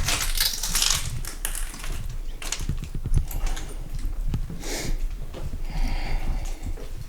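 Footsteps crunching and clicking over debris on a hard floor: irregular scrapes and thumps with several sharper crunches.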